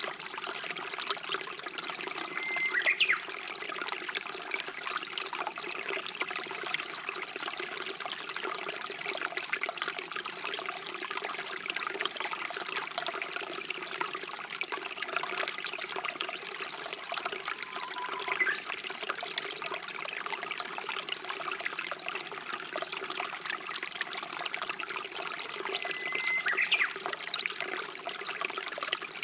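Stream water trickling and running steadily. Three times, about 3 s in, around 18 s and near the end, a Japanese bush warbler (uguisu) sings a held whistled note that ends in a quick rising flourish.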